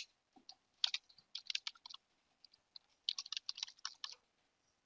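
Computer keyboard typing: two quick runs of key clicks, the first about a second in and the second about three seconds in.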